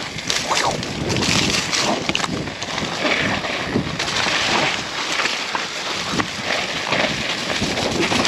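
Wind buffeting the microphone of a camera on an enduro mountain bike descending a leaf-covered dirt trail, with tyres crunching over leaves and dirt and frequent knocks and rattles from the bike over bumps.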